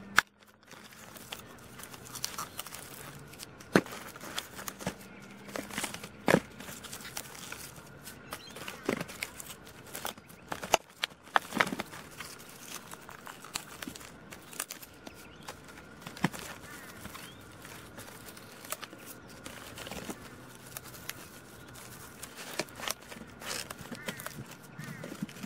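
Strawberries handled in a thin plastic punnet: irregular crinkles and clicks of the plastic as berries are moved about and their leafy tops plucked off.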